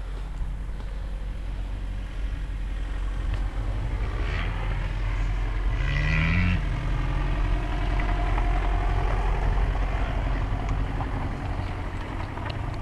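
250 cc motocross bike engine running, with a steady low rumble throughout; the revs rise briefly around the middle, giving a short climbing pitch.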